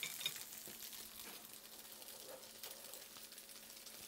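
Faint, steady sizzle of oil in a frying pan, a fine crackle under a low steady hum.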